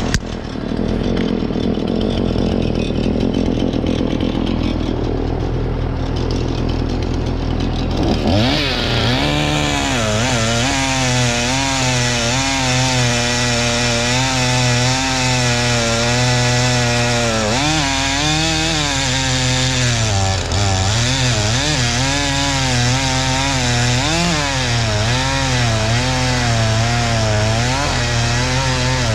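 Husqvarna 435 two-stroke chainsaw running lower at first, then from about eight seconds in at full throttle cutting firewood logs, its pitch dipping and recovering again and again as the chain loads up in the wood.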